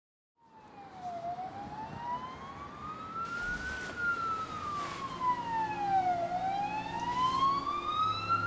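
Emergency-vehicle siren in a slow wail, rising and falling in pitch about once every five seconds. It starts about half a second in, out of silence. A low steady hum joins under it near the end.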